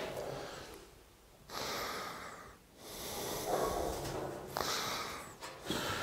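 Sheet metal being bent on a hand-operated bending brake: a few bursts of scraping, rushing noise as the sheet slides and flexes, with several sharp clicks in the second half.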